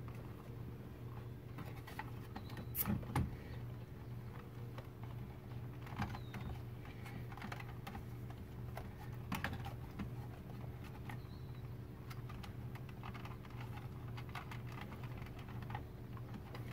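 Small plastic clicks and rattles, scattered and irregular, from wiring connectors and console trim being handled and worked loose inside a car's centre console, over a steady low hum.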